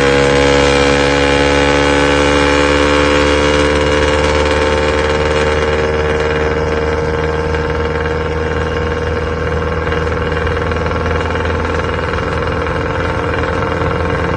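Isuzu C240 four-cylinder diesel engine running loud through a Lamigo four-divider muffler, its revs easing down slowly over the first several seconds and then holding steady.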